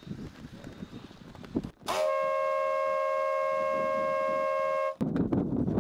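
A horn gives one steady blast of about three seconds, several tones sounding together at a fixed pitch. It starts about two seconds in and cuts off abruptly. Before and after it there is a rough, uneven noise.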